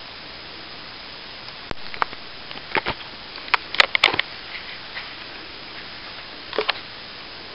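Irregular crunching footsteps on a dry dirt trail, scattered clicks and scuffs that bunch together loudest about four seconds in and come once more near the end, over a steady hiss.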